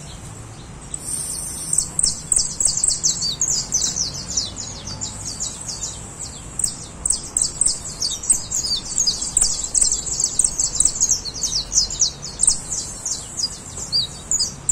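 Caged yellow finch singing a long, fast song of quick high chirps. It starts about a second in and runs on with only brief pauses.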